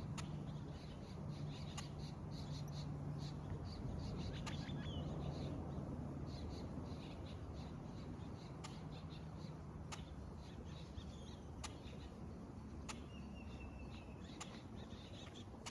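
Small birds chirping in short, high, repeated notes, with a few sharp clicks and a low steady hum underneath that fades after the first few seconds.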